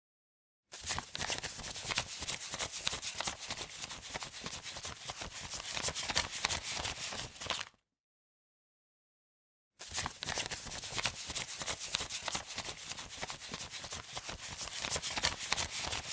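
Paper banknotes being counted: a rapid, dense riffle of flicking bills. It comes in two runs of about seven seconds each, each starting and stopping abruptly, with dead silence between them.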